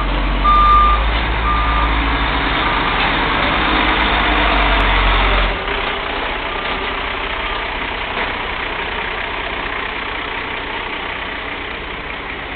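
Garbage truck reversing: its backup alarm beeps about once a second over the running engine, the beeps growing fainter after the first couple of seconds. A loud low rumble drops off suddenly about five and a half seconds in.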